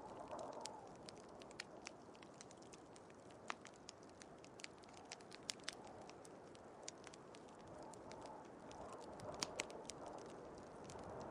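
Wood fire crackling, with irregular sharp pops scattered through, over a soft rushing wind that swells near the start and again near the end.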